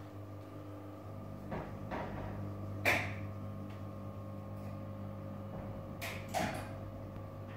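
Motor-driven paternoster storage lift for LGB model trains running with a steady hum, its shelves moving. Several clunks and knocks come through it, the loudest about three seconds in.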